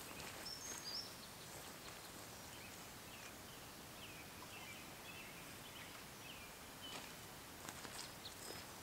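Faint birds calling: short, scattered chirps and whistles over quiet forest background. Light footsteps through grass toward the end.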